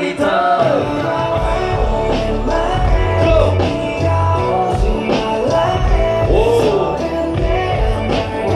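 Live music over a concert PA: a man singing a gliding melody over a backing track with a deep, pulsing bass.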